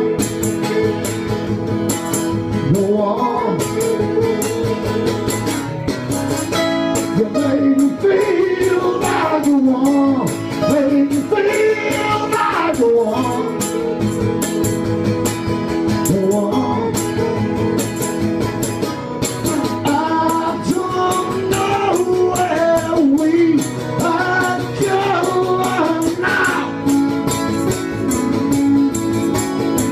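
Live acoustic duo: two acoustic guitars playing a song together, with a man's voice singing at times.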